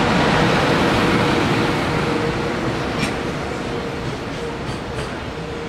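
EH500 electric freight locomotive passing close by, then its container wagons rolling past: a steady rumble of wheels on rails that eases slightly, with a sharp click about three seconds in and a few fainter clicks after.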